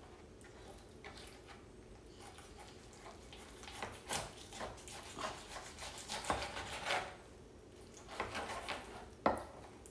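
Knife cutting through raw chicken on a plastic cutting board: faint, irregular scrapes and taps, starting about four seconds in.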